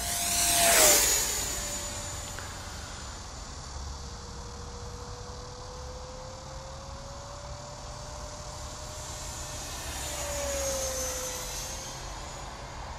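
Freewing Yak-130 RC jet's 70 mm electric ducted fan whining in flight. It makes a loud, fast pass about a second in, its pitch dropping sharply as it goes by. The whine then carries on fainter and swells again in a second pass near the end, its pitch falling as it passes.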